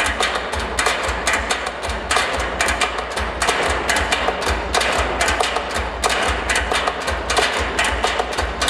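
A percussion ensemble beats sticks on rusty metal oil drums and plastic bins in a fast, dense rhythm, with a strong low boom under the strikes.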